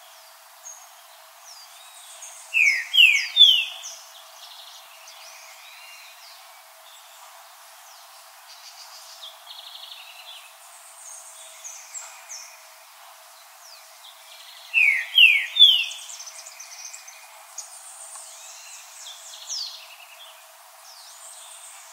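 Green-winged saltator singing: two loud phrases, each a quick run of three slurred whistles, one a few seconds in and the other about two-thirds through, with fainter high bird chirps in between.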